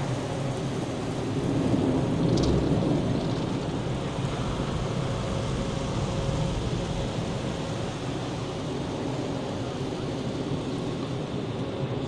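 Water spraying and streaming over a car's windscreen and body in a Christ tunnel car wash, heard from inside the cabin as a steady rushing noise over a low rumble of the wash machinery.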